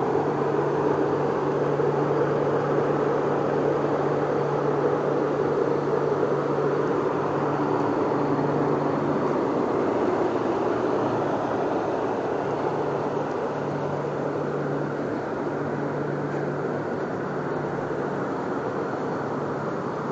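Portable diesel-fired heaters running: a steady burner and blower noise with a low hum, easing slightly after about ten seconds.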